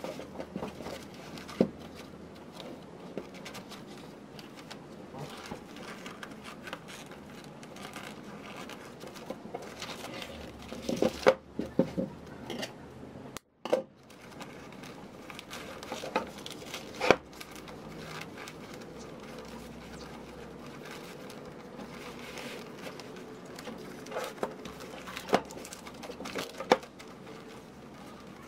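Wrapping paper crinkling and rustling as hands wrap and tie jute twine around a paper-wrapped parcel, with scattered light taps and knocks on a wooden tabletop. The sound cuts out briefly about halfway through.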